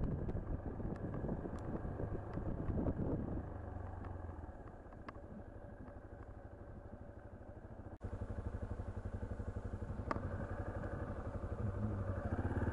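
Yamaha Serow 250's single-cylinder engine running at low speed on the move. It drops to a quieter, idle-like pulse for a few seconds in the middle, then picks up again, with the revs rising near the end.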